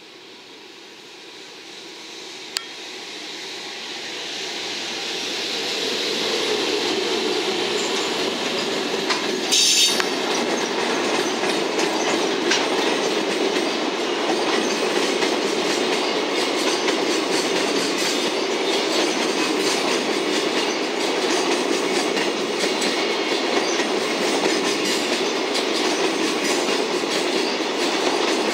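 Electric-locomotive-hauled container freight train approaching and passing close by, growing louder over the first several seconds. The container wagons' wheels then keep up a steady rumble and clickety-clack over the rail joints, with a brief louder burst about ten seconds in.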